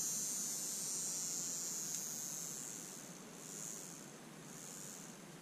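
Small brushed DC can motor from a Black & Decker cordless screwdriver, just rebuilt with its brushes refitted, running free on bench power with a steady high-pitched whir. It sags slightly about three seconds in and comes back up.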